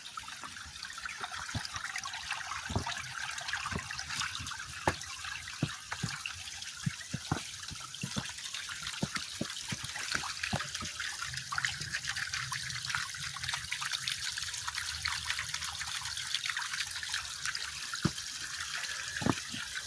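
Small waterfall of spring meltwater running, a steady hiss of falling water broken by many short, sharp splashes and clicks.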